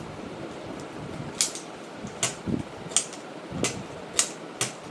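Nerf blaster with an orange rotating cylinder being worked by hand: about six sharp plastic clicks spaced under a second apart, coming closer together near the end.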